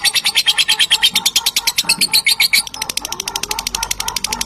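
Lovebird's long 'ngekek' chattering trill: an unbroken run of shrill notes at about a dozen a second. A little under three seconds in it shifts to a thinner, quicker trill.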